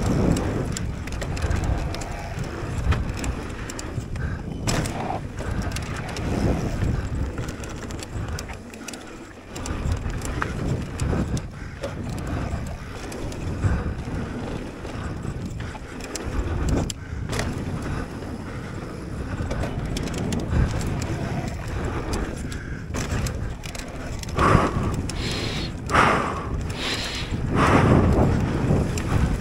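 Mountain bike ridden fast down a dirt trail: wind buffeting the microphone, with tyres on loose dirt and the bike rattling over bumps, louder in a few surges near the end.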